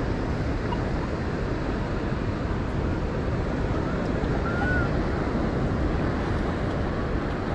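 Steady wind rumble on the microphone mixed with the wash of surf on the beach.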